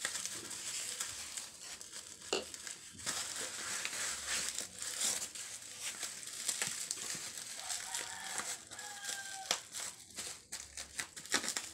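Bubble wrap crinkling as hands turn and grip a wrapped package, with many small sharp crackles.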